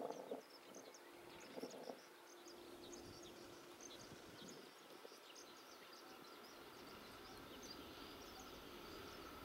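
Near silence: faint rural ambience with scattered high chirping. A faint steady whine builds slowly through the second half as a 115 series electric train approaches from the distance.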